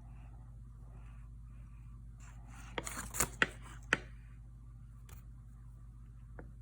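Razor blade scoring cold bread dough: soft scratchy strokes as the blade draws across the surface, with a short cluster of sharp clicks and scrapes about three seconds in.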